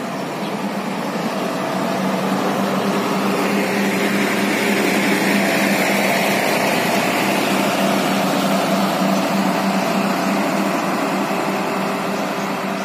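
Intercity coach's diesel engine running as the bus pulls away and drives past, a steady drone that grows louder over the first few seconds and then holds.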